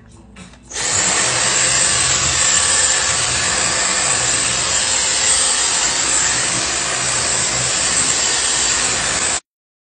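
Dyson stick vacuum cleaner running steadily while it is pushed over a wooden floor. It comes up about a second in and cuts off suddenly near the end.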